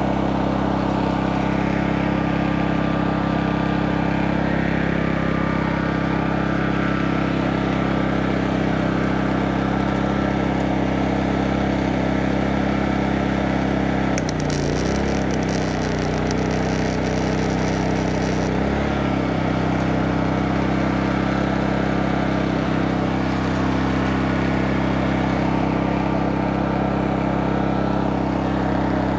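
MaXpeedingRods MXR4500i petrol generator engine running steadily. About 14 seconds in, a Clarke 135 A MIG welder on its lowest setting strikes an arc for about four seconds, a crackling hiss on sheet steel, and the engine note dips and wavers as the governor takes up the welding load, then settles.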